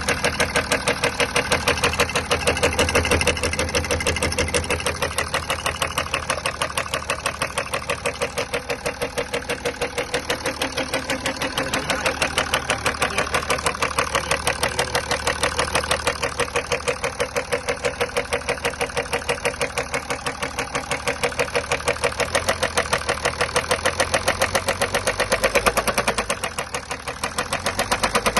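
BMW M57 straight-six diesel engine running with a regular, rhythmic knock from the engine.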